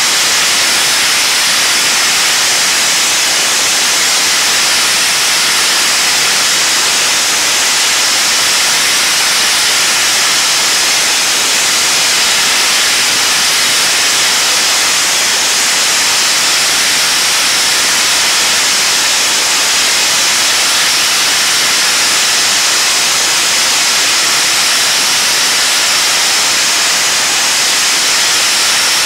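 Sponge-media blaster running continuously, a loud, steady, high hiss of compressed air driving abrasive sponge media against painted wooden ceiling planks as it strips the paint.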